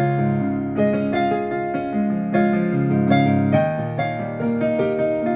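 AODSK S-200 88-key fully weighted digital piano played through its own built-in speakers, which fire from underneath the instrument. It plays a slow passage of chords and melody notes, each struck about every half second and left to ring.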